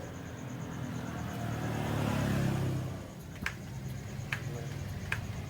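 Tuned Vespa PX two-stroke single-cylinder engine running, revved up about two seconds in and then dropping back. A few sharp clicks come at roughly even spacing in the second half.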